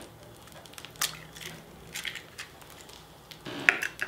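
An egg being cracked and its shell pulled apart by hand over a glass bowl of sourdough starter: faint crunching with a few light clicks, and a sharper click near the end.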